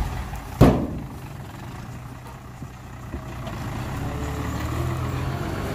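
Dump truck's diesel engine running steadily, growing louder in the second half. About half a second in, a single sharp short burst stands out above it.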